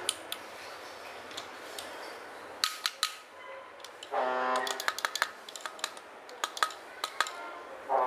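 Sharp metal clicks and taps from pliers and the steel shaft and bearing being handled in a PVC-pipe generator housing, coming thick and fast in the second half. A brief pitched sound cuts in about four seconds in.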